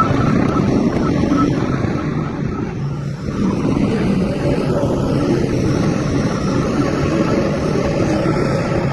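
Heavy diesel engine of construction machinery running loudly and steadily, dipping briefly about three seconds in before picking up again.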